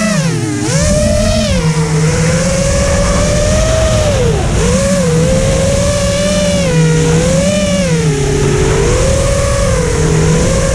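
FPV quadcopter's brushless motors and propellers whining, heard from on board, the pitch rising and falling as the throttle changes. There are sharp dips about half a second in and again about four and a half seconds in, over a steady low rush of wind and prop wash.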